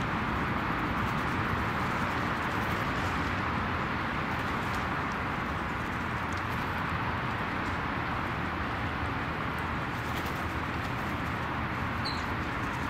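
Steady rushing outdoor background noise, with a few faint clicks and one short high bird chirp about twelve seconds in.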